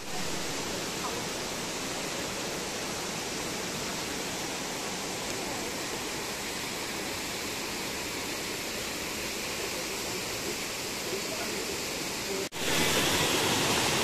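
Steady rush of the Silvermine Waterfall's stream cascading over boulders. About twelve seconds in it drops out for a moment and comes back louder.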